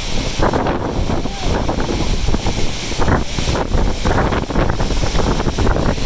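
Strong wind buffeting the microphone: a loud, gusty rumble that comes and goes in irregular flurries.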